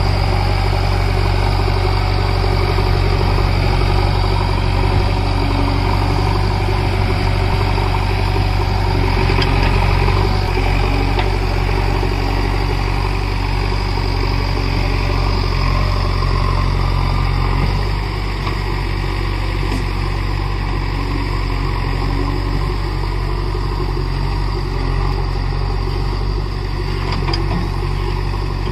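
A heavy engine idling steadily with a constant low rumble, easing slightly in level about 18 seconds in.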